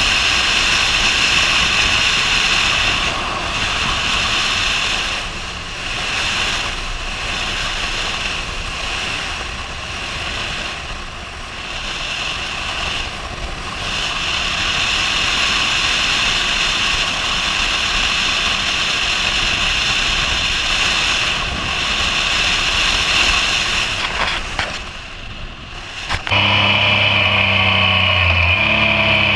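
Yamaha MT-09 motorcycle riding at speed, heard mostly as a steady rush of wind and road noise at the rider's helmet, with the level dipping and swelling a few times. Near the end the sound switches abruptly to the bike's inline-three engine heard close up, its note shifting in pitch once.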